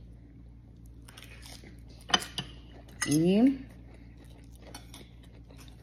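Cutlery clinking and tapping against a plate and a small glass dish: one sharp clink about two seconds in, then a few lighter taps.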